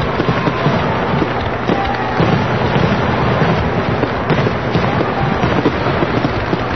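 Fireworks going off in a dense, continuous barrage of pops and crackles.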